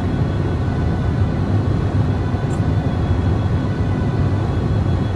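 Steady low rumble of road and engine noise inside a car cruising at motorway speed.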